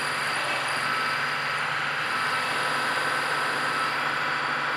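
Milling machine end mill cutting wrench flats on a threaded flywheel-puller body: a steady cutting noise with a constant whine and a low hum from the spindle.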